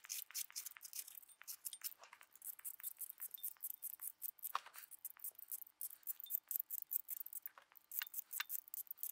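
Soft, quick, irregular scraping clicks of a vegetable peeler stripping zest from citrus fruit, with light clinks against a glass bowl.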